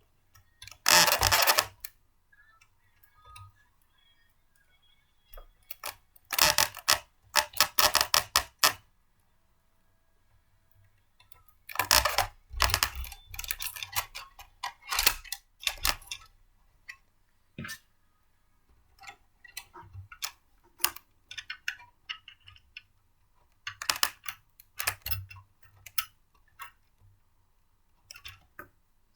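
Hard plastic and metal blender parts being handled and fitted together: clusters of quick clicking and rattling a few seconds apart, with single clicks between.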